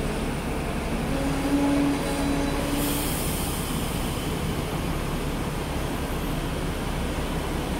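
Hong Kong double-decker electric tram running on its rails, a steady low rumble, with a brief high squeal from about a second in to three seconds.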